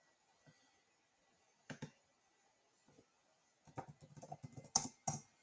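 Computer keyboard typing, faint: a couple of clicks, then a quick run of keystrokes in the second half as a word is typed.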